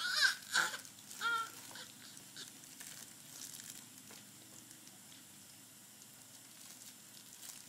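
A baby's three short, high-pitched vocal sounds in the first second and a half, followed by faint clicks from the plastic toys of an activity centre being handled.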